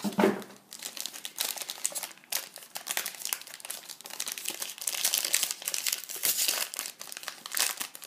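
Foil trading-card pack wrapper crinkling in irregular crackles as it is handled and torn open by hand.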